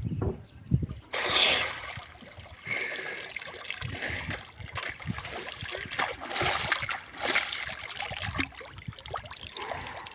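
Water splashing and sloshing, irregular and continuing, starting suddenly about a second in after a few low thumps.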